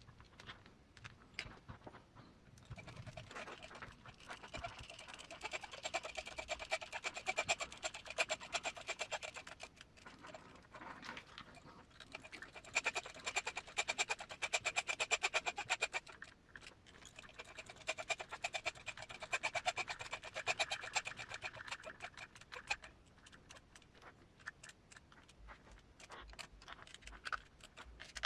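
Small cordless electric screwdriver running in three stretches of several seconds each, a fast even buzzing whir as it drives cap head screws into a plastic RC transmission housing, with light handling sounds between.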